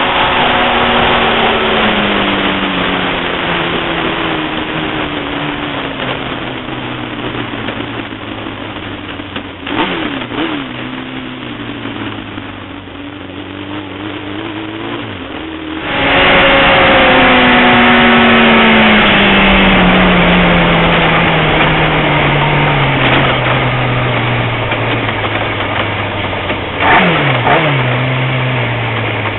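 Sport motorcycle engines on a race circuit: revs falling in long downward glides as bikes pass and pull away, over steady noise. About halfway the sound abruptly gets louder, and near the end a bike goes by close with a quick swoop in pitch.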